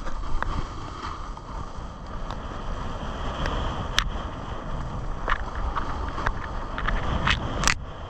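Wind buffeting the microphone of a skier moving downhill, over skis sliding on packed snow, with several short, sharp scrapes of ski edges, most of them in the second half.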